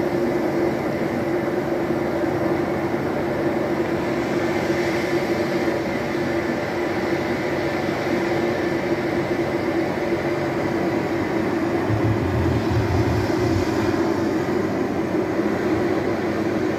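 An electric fan running steadily with a constant hum, mixed with the whooshing wash of an ocean-waves sleep soundtrack. A brief low rumble comes in about twelve seconds in.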